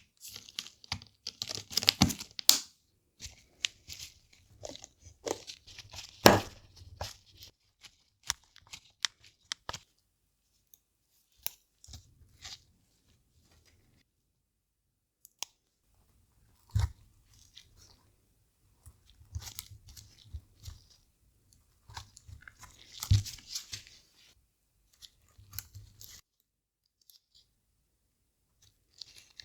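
Plastic parts of a Nintendo DSi XL being handled and fitted: irregular clicks, taps and crinkly rustles in clusters, with a couple of quiet stretches.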